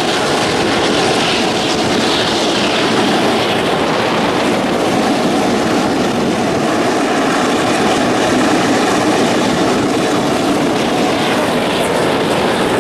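Steam-hauled passenger train running at speed: a loud, steady rumble and rush of air with no separate beats.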